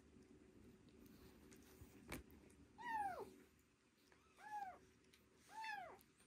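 Young kittens mewing three times, short cries that rise and then fall in pitch, a second or so apart.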